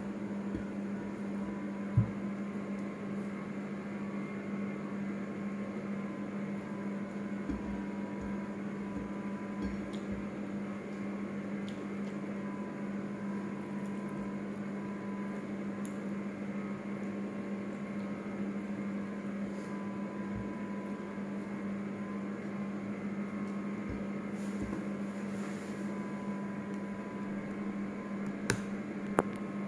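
Steady electrical hum of a kitchen appliance, a low tone with a fainter higher whine above it. A sharp knock comes about two seconds in, and two more near the end.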